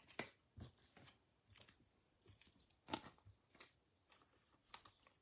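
Faint handling noise of trading cards and their packaging: a scatter of short light ticks and crinkles, a few at a time.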